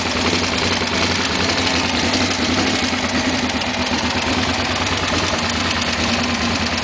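Suzuki SV400's V-twin engine idling steadily.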